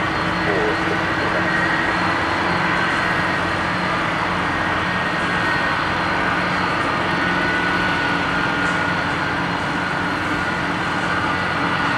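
Boeing 747-400's four jet engines running at taxi thrust: a steady whine over a low rumble, holding an even level as the airliner taxis closer.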